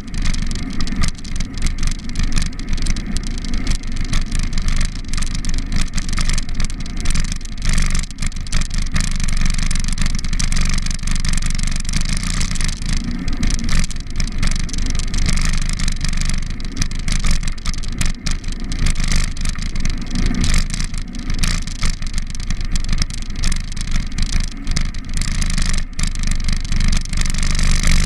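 Wind rushing over the microphone of a camera riding on a bicycle along a paved cycle path, with a constant rattle from the ride, and car traffic on the road alongside.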